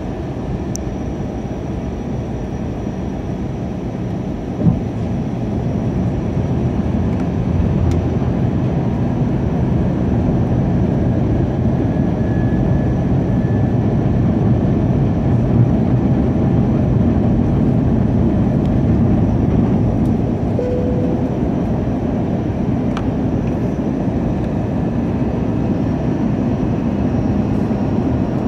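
Steady cabin noise of an Airbus A321 on approach: the rumble of engines and airflow heard inside the passenger cabin. A short knock comes about five seconds in, after which the noise runs a little louder.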